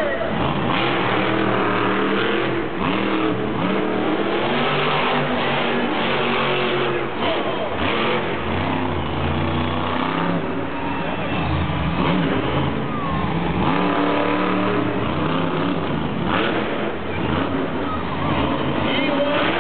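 Monster truck's supercharged V8 engine revving hard and repeatedly, its pitch rising and falling as the truck drives and jumps.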